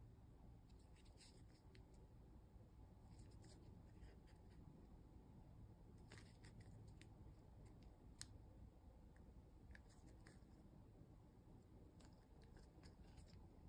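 Near silence, with scattered faint clicks and rubs from fingers turning a plastic toy capsule ball, over a low steady room hum.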